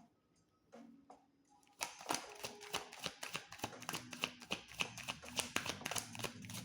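Tarot cards being shuffled by hand: after a quiet start, a dense run of quick card clicks and riffles begins about two seconds in and keeps going.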